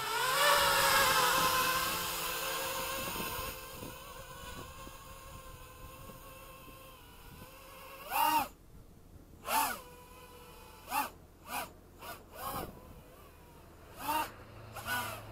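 Realacc X210 racing quadcopter's brushless motors throttled in short bursts on a 3S battery during line-of-sight flying: about seven quick whines, each rising and falling in pitch, starting about eight seconds in. Before that, a hiss fades out over the first few seconds.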